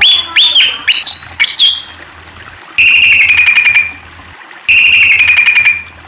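Malaysian pied fantail (Rhipidura javanica) calling: a quick run of squeaky notes that swoop up and down, then two matching rapid buzzy trills of about a second each, the second starting about two seconds after the first.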